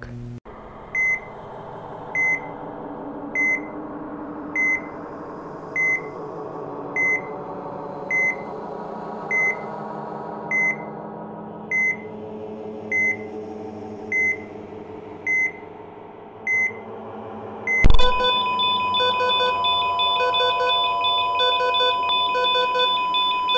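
Heart-monitor sound effect: a short high beep about every 1.2 seconds over a low drone, about fifteen beats. Near the end a sudden hit gives way to a continuous flatline tone with an alarm pulsing over it, the signal of a heart that has stopped.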